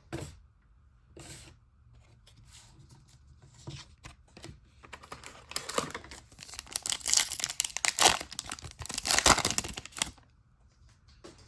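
Plastic wrapper of a basketball trading-card pack being torn open and crinkled, with a few light clicks at first and a denser stretch of crinkling from about halfway in, stopping shortly before the end.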